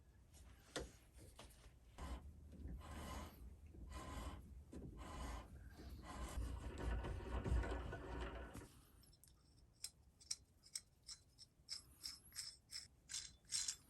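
A 4.5 mm drill bit cutting through a small metal part on a mini lathe, a rough scraping whirr for about nine seconds. Then a run of light, sharp clicks, two or three a second.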